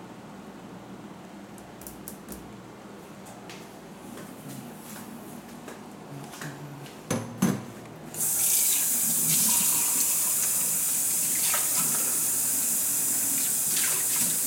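A few small clicks and two sharp knocks, then a single-lever kitchen faucet is turned on just past halfway. Water runs steadily into a stainless steel sink.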